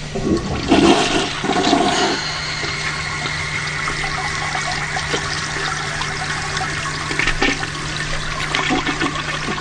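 Toilet flushing: a loud gush of water in the first two seconds, settling into a steady rush of water over a low hum.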